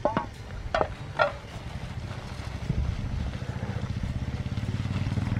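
A few short clinks in the first second and a half, then a low engine drone with a rapid, even pulse that builds steadily louder.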